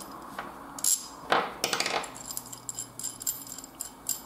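Small metal hardware clinking and knocking as a threaded rod with washers is handled against a wooden workbench: a few sharp clicks, most of them between one and two seconds in, then lighter ticks.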